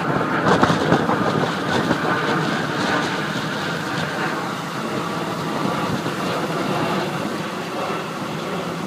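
Wind buffeting a phone's microphone: a steady rushing with irregular gusts, stronger in the first few seconds.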